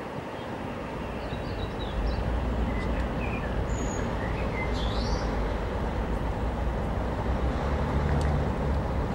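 Low steady drone of a passing inland cargo barge's diesel engine, a little louder from about two seconds in, with birds chirping above it.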